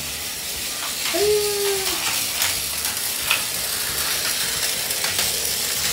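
Battery-powered Plarail toy train running on plastic track: a steady gear whir with frequent small clicks as the wheels cross the track joints. A short hummed note comes in about a second in.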